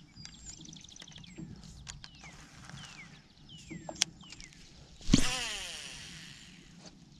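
A fishing rod cast about five seconds in: a sharp whoosh followed by the reel's line paying out with a whir that falls in pitch and fades. Birds chirp before it with short falling calls.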